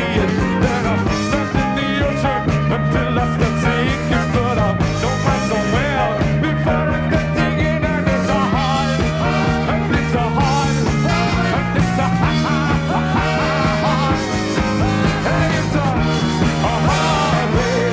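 Live rock band playing with a steady beat and a driving bass line under busy lead lines.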